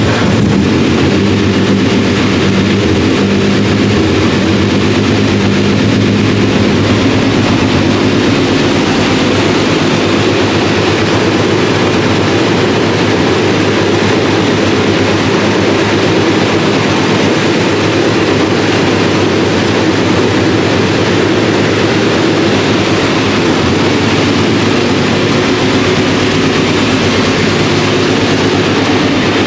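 Alfa Romeo 155 V6 TI DTM race car's V6 engine idling steadily and evenly while warming up, with a loud, unchanging run and no revs.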